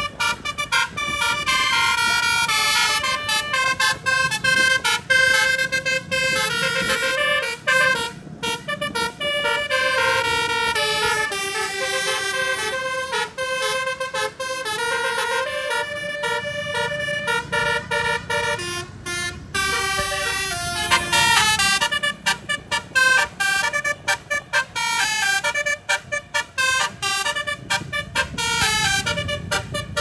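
A tour bus's telolet musical air horn playing a fast melody, its notes stepping up and down in pitch and cutting in and out rapidly, over a low rumble of engine and road.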